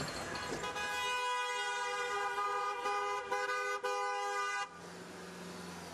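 Car horn held on one steady pitch for about four seconds, broken by a few brief gaps, in street traffic. It cuts off near the end, leaving a quieter low steady hum.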